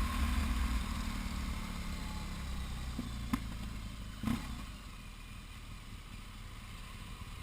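BMW R1200GS Adventure's boxer-twin engine running at low revs, its rumble fading. There are two sharp clicks about three and four seconds in, after which it is quieter.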